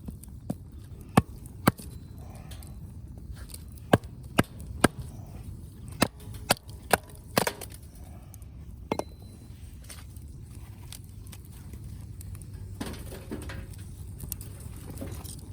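Wood fire crackling: burning firewood giving about ten sharp, separate pops, mostly in the first nine seconds, over a steady low rumble.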